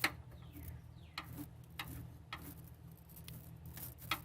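Wire brush of a battery terminal cleaner scrubbing a battery terminal clean for good contact: short, irregular scraping strokes, about two a second.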